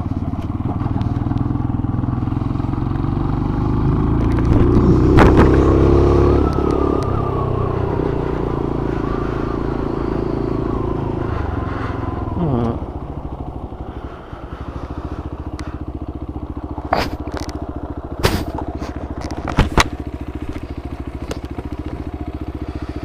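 Motorcycle engine running under throttle, its pitch rising over the first few seconds, then dropping away sharply about halfway through as the bike slows, and running steadily at low revs for the rest. A few sharp clicks come near the end.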